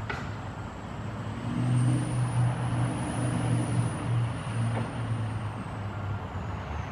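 Engine hum of a passing road vehicle, swelling about a second and a half in and dying away near the end, with a faint high whine above it.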